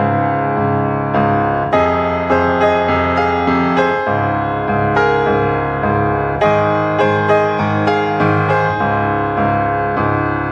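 Background instrumental music: piano notes struck one after another in a steady, gentle rhythm, each note ringing out and fading.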